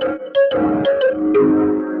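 Instrumental music: a melody of pitched notes, changing a few times a second.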